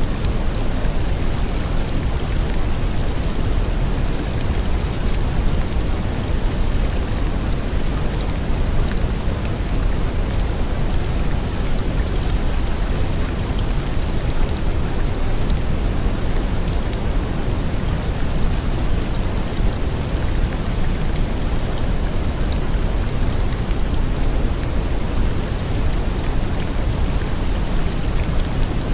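Steady rain sound, heavy in the low end and unchanging, with no single drops or rolls standing out: the masking layer of a subliminal affirmation track.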